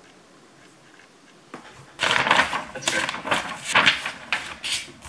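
Sheets of lined notebook paper being handled and shuffled on a desk: a quick, irregular run of crackling rustles starting about two seconds in and stopping near the end.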